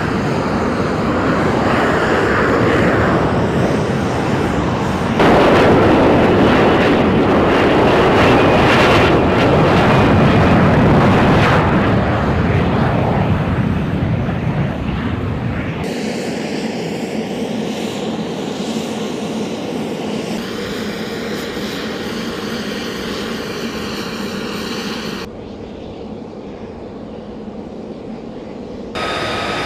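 Loud, steady jet noise from an F-35B Lightning II's F135 turbofan as the jet hovers and sets down vertically. After about 16 s, cuts bring in a much quieter steady noise, which drops again abruptly near the end.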